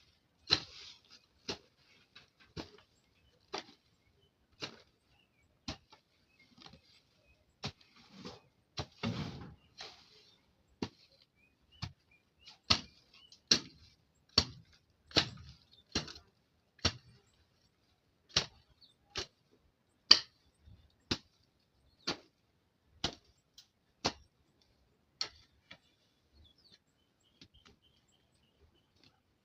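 A hand weeding tool striking soil and grass in regular chopping strokes, about one a second, thinning out to faint knocks near the end.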